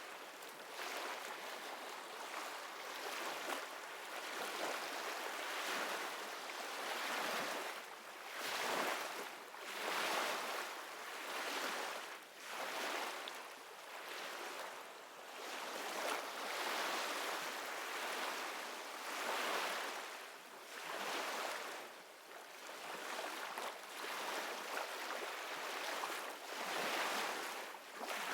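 Ocean surf: a steady rush of waves washing in, swelling and fading every couple of seconds.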